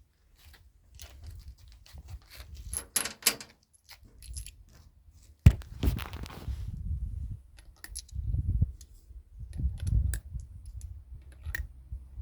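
Metallic clicks and rattles of a .357 Magnum revolver-cylinder rifle being handled, with one sharp metallic snap about five and a half seconds in and a few dull knocks after it.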